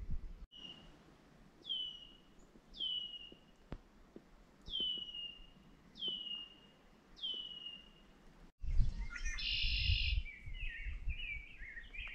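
A songbird repeating a short whistled note that slides down in pitch, six times over about seven seconds. After an abrupt cut, several songbirds call at once, one with a buzzy trill, over a low rumble.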